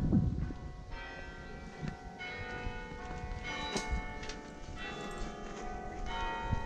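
Bok Tower carillon bells playing a slow tune: several bell notes struck in turn about a second apart, each ringing on and overlapping the next. A brief low rumble at the very start.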